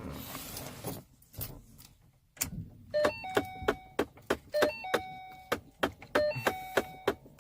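Key clicking and rattling as it is worked in a stuck ignition lock cylinder on a 2012 Ford Mustang GT. From about three seconds in, the car's warning chime rings a repeating multi-tone pattern about every one and a half seconds, with clicks of the key and keys between.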